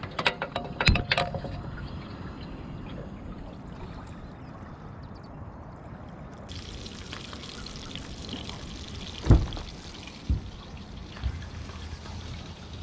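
Portable gas cooker being handled with a few clicks and knocks, then a steady hiss of gas from the lit burner that starts about six and a half seconds in. A sharp thump comes about nine seconds in.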